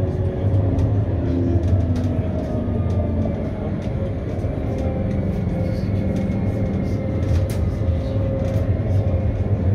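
CAF Urbos 3 tram running, heard from the driver's cab: a steady low rumble of wheels on the rails with a faint whine from the electric drive that steps down in pitch over the first few seconds.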